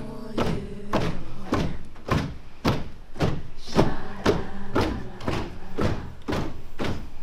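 A team celebrating in a locker room, beating out a steady rhythm of loud thumps, about two a second, with a tune carried over the beat.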